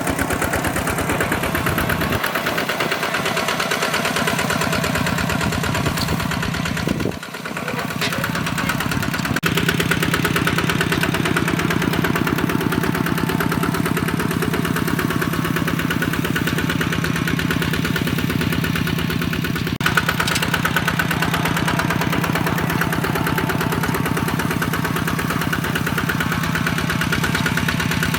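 Diesel engine of a two-wheel hand tractor running steadily with a fast regular beat. It dips briefly about seven seconds in, then runs steadily again.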